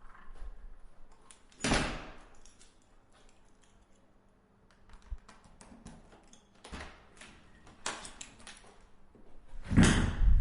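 A door being opened and shut: a thump about two seconds in, small clicks and rattles of the handle and latch, then a heavier thump near the end as it closes.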